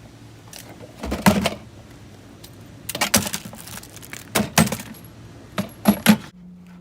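Metallic clinks and clatters of small hard objects being handled, in four short bunches spread a second or more apart.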